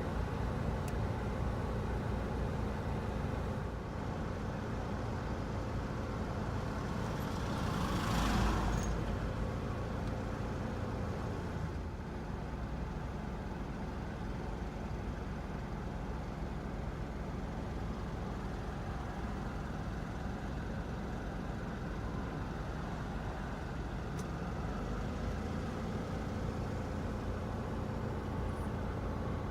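Mitsubishi Delica D5 running: a steady low engine and road rumble, with one louder whoosh about eight seconds in.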